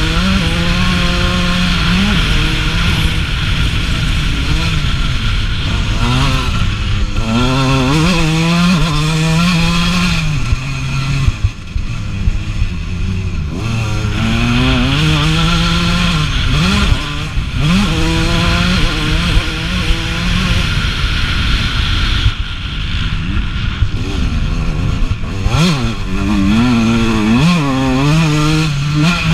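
1989 Suzuki RM125's two-stroke single-cylinder engine being ridden hard, heard close from the bike. Its pitch climbs and drops again and again through throttle and gear changes. It briefly eases off about a third of the way in.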